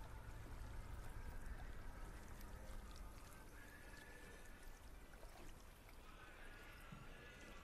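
Quiet lake water lapping and rippling, a soft, steady wash.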